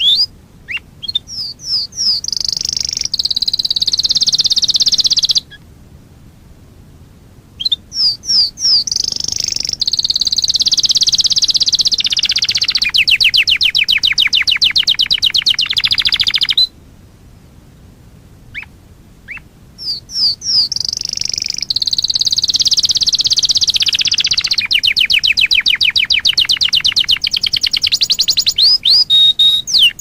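Domestic canary singing a tutor song for training young birds: three long song phrases with short pauses between them. Each opens with a few separate sweeping notes and runs into fast rolling trills.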